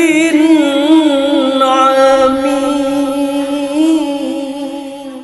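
A man's voice chanting Quran recitation in melodic tajwid style, holding one long ornamented note that wavers up and down in pitch and fades out near the end, closing the verse.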